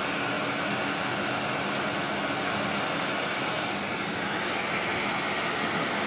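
Natural gas escaping from a burst gas pipe, a steady hiss that does not change; the valve has been partly closed but the leak goes on.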